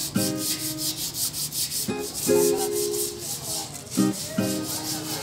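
Background music: pitched chords struck about every two seconds over a fast, even shaker-like rhythm.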